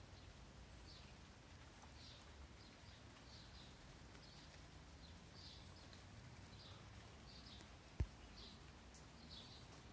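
Faint, high bird chirps repeating irregularly, a little over once a second, over a very quiet outdoor background. A single sharp knock sounds about eight seconds in.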